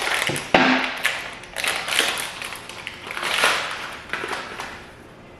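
Handling noises: irregular crinkling and rustling with taps, a sharp knock about half a second in.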